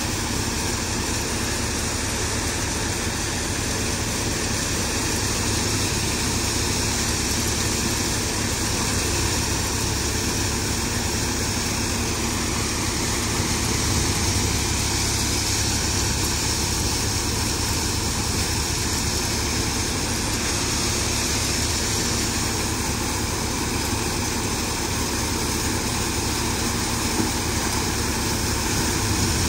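Tractor-driven thresher running steadily under load as dry chickpea plants are fed into it, its drum and fan making a constant dense noise with the Swaraj tractor's engine beneath.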